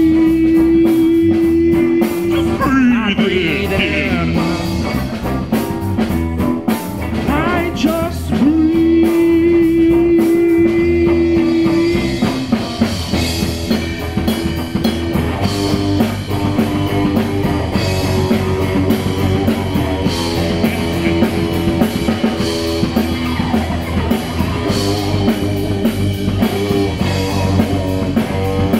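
Live rock band of drum kit, electric guitar and electric bass playing a song, with two long held notes in the first half.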